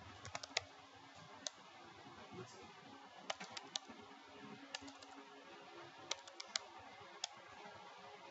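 Computer keyboard keys clicking in short clusters of a few keystrokes at a time, faint, over a faint steady hum.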